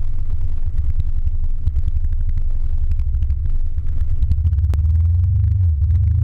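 Motor scooter engine idling while standing still, a loud, low, uneven rumble picked up through the scooter-mounted camera. It grows a little steadier and stronger near the end.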